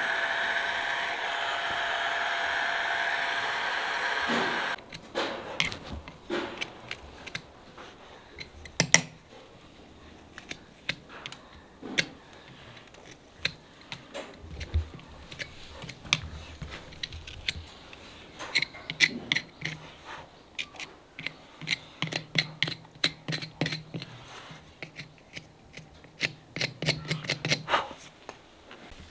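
A heat gun blowing on a horse's hoof wall with a steady whine for about the first five seconds, cut off abruptly. Then a hoof knife paring the hoof on a hoof stand: irregular sharp clicks and scrapes as damaged horn is cut away.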